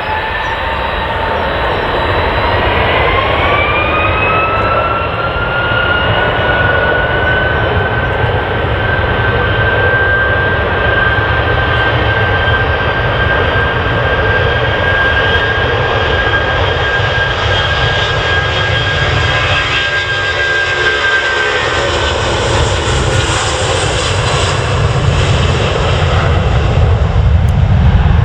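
Jet airliner's engines spooling up to takeoff thrust. The fan whine rises in pitch over the first few seconds and then holds steady, while the rumble of the engines grows louder near the end.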